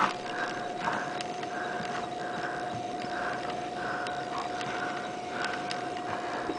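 Yorkshire terrier rubbing itself and rolling on towels to dry its wet fur, making a breathy rustling that repeats about twice a second.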